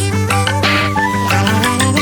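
Background music: an upbeat instrumental track with sustained melody notes over a steady bass and a regular beat.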